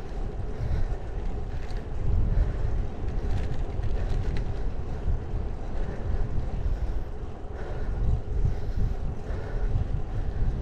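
Wind buffeting the microphone of a camera on a moving bicycle, over a steady low rumble of the tyres rolling on asphalt.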